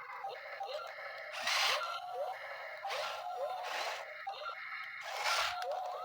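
Small electric motors of toy RC construction vehicles (dump truck and excavator) whirring in short bursts of a second or less, several times, over a steady high hum with repeated short pitch sweeps.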